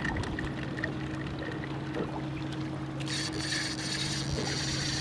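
Boat motor humming steadily. About three seconds in, a high buzzing hiss lasts about a second as line pulls off a spinning reel's drag under a hooked fish.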